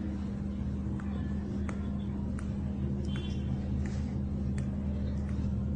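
Skin being pinched and pulled in pinching (jiu sha) therapy, giving faint short snaps about every 0.7 seconds, over a steady low hum.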